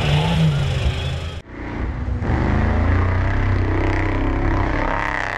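Off-road race buggies' engines running and revving. The sound breaks off suddenly about a second and a half in, then several engines carry on together with a steady low drone and wavering revs.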